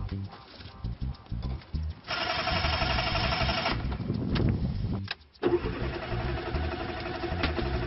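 Starter motor of a small Fiat Panda cranking the engine in two attempts with a short break between. The first attempt runs about a second and a half; the second starts about five and a half seconds in and is still going at the end. The engine does not catch.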